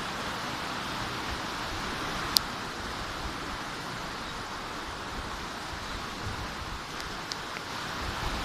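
Rain falling in a steady hiss, with one sharp click about two seconds in and a couple of faint ticks near the end.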